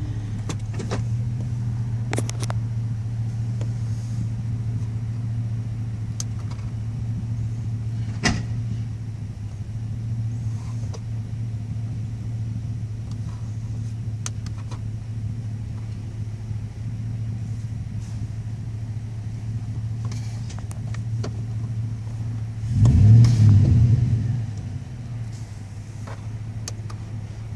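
Engine idling steadily, heard from inside the cab while the four-wheel-drive selector is worked, with a few sharp clicks. About 23 seconds in, a loud, rough clunk and rumble lasting about a second and a half as the drivetrain engages four-wheel drive, which the owner takes for something broken, perhaps a U-joint.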